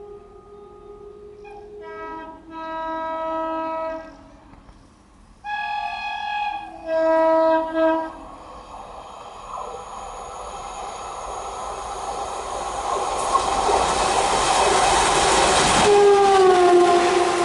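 WCAM2 electric locomotive's horn sounding a series of long honks on changing notes, then the train's running noise building steadily as it approaches. Near the end a final horn note falls in pitch as the locomotive passes.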